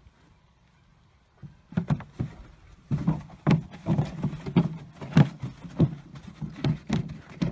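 A horse's hooves thudding on dry ground and a plastic barrel knocking as the horse moves with its head in the barrel: irregular dull thumps, a few a second, starting about a second and a half in.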